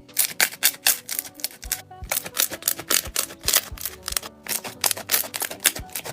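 Slime being squeezed and pressed in the hands, making rapid sharp clicks and pops from trapped air, with short breaks about two seconds and four seconds in. Soft background music underneath.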